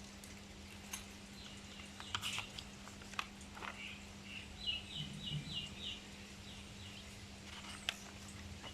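A small bird chirping, with a quick run of five or six short high notes about halfway through, over a faint steady low hum and a few scattered clicks.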